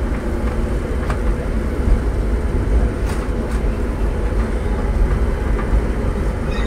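Passenger train running, heard from inside the carriage: a steady low rumble with a few faint clicks.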